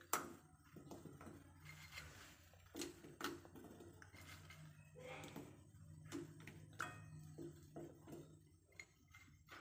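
A few faint, scattered clicks and light knocks of kitchen utensils over a low steady hum.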